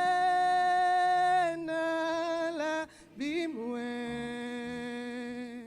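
A single voice singing a slow worship song in long held notes. The first note is sustained, a breath breaks it about three seconds in, and then a lower note is held, fading near the end.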